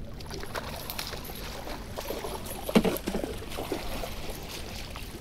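Water splashing and trickling beside a kayak, with a few short knocks in the middle of the stretch.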